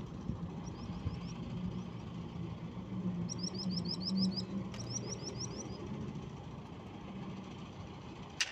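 Bulldozer's diesel engine running steadily in the background. About halfway through, a small bird gives two quick series of chirps.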